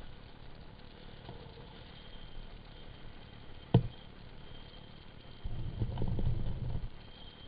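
Low rumble of a gravity bike's tyres rolling fast on asphalt, heard through a GoPro housing, with one sharp knock about four seconds in. Near the end the bike crosses rougher, cracked pavement, and for over a second the rumble turns louder and rattling.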